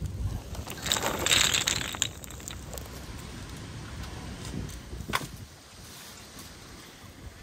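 Brushwood fire crackling, with a loud rushing crackle for about a second near the start. About five seconds in, the metal frame of a chain-link cot set over the embers clanks once.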